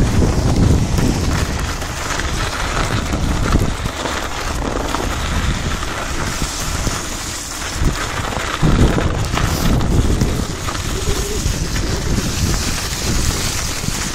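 Wind buffeting the microphone of a handlebar-mounted camera as a bicycle rides, with a steady hiss of the tyres rolling through fresh snow. The low rumble comes and goes in gusts.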